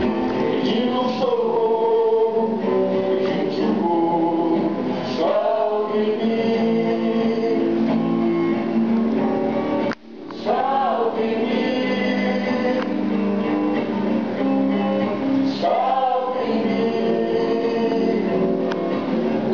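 Background song with sung vocals, a male voice and a choir, over plucked guitar. It breaks off briefly about ten seconds in, then resumes.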